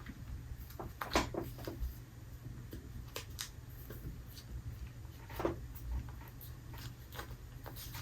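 Scattered light clicks and taps from hands handling small pieces and packaging, with the clearest taps about a second in and near five and a half seconds, over a low steady hum.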